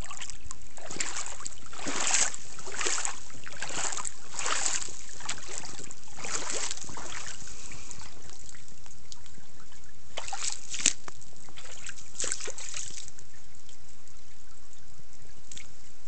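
Footsteps splashing through shallow floodwater, roughly one step a second for the first seven seconds and again for a few steps after about ten seconds, over a steady trickle of running water.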